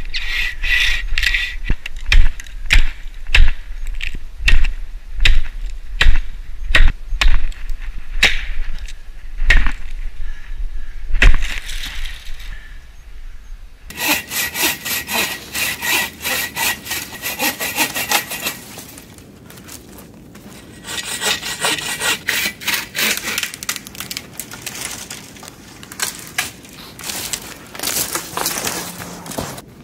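Folding bow saw cutting through a standing oak trunk near its base with steady back-and-forth strokes, about one and a half a second. About halfway through the sound changes to quieter, more distant sawing of the felled tree's limbs in stretches, with short pauses between them.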